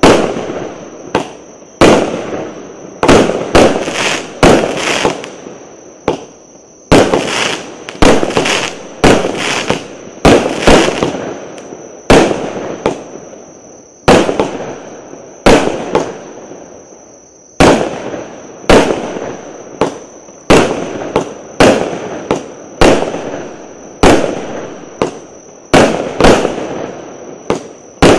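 A 36-shot consumer firework battery (cake) firing shot after shot, roughly one to two a second with a few short pauses, each sharp report fading away before the next as the shells launch and burst overhead.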